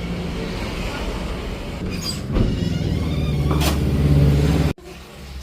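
Steady low rumble of a running motor vehicle, growing louder toward the end, then cut off abruptly near the end.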